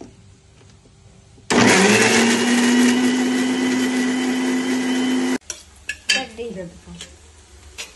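Philips mixer grinder with a steel jar grinding tomato, green chilli and ginger into a paste. It starts suddenly about a second and a half in, rises briefly in pitch as the motor spins up, runs steady, and cuts off abruptly after about four seconds. A few knocks and clinks of the steel jar being handled follow.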